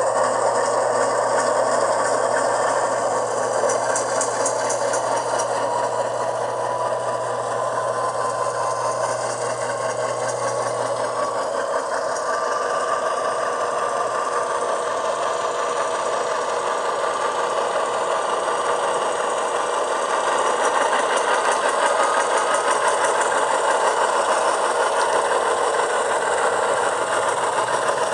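HO-scale Union Pacific Dash 9-44CW model's sound decoder playing a GE 16-cylinder diesel prime mover running, through the model's small on-board speaker, as the locomotive moves along the track. A steady low hum stops about eleven seconds in, and the engine sound grows a little louder around twenty seconds in.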